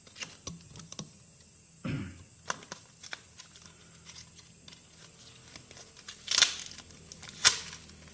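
Handling noises as a new printer power-supply board is picked up: scattered light clicks and plastic crinkling, a dull knock about two seconds in, and two louder crinkles near the end.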